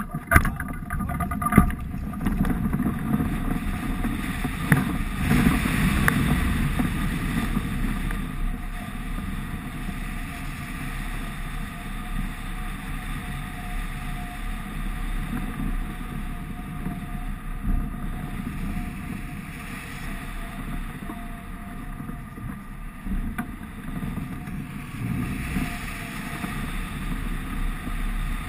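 Airflow rushing over a wing-mounted camera on an Icaro RX2 hang glider in flight, a steady rumbling wind noise, with a few knocks in the first couple of seconds.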